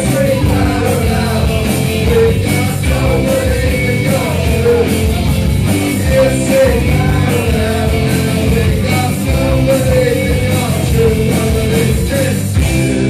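Live rock band playing: electric guitars and drums with a man singing into a handheld microphone. The drumming stops just before the end as the song closes.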